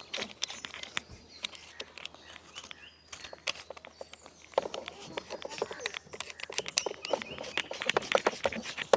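Irregular plastic clicks and knocks as a pressure washer's spray lance is pushed into its trigger gun and twisted until it locks tight.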